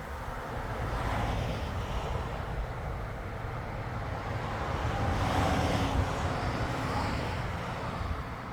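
Wind rustling through black walnut tree leaves, swelling in gusts about a second in and again around five to six seconds, over a steady low rumble.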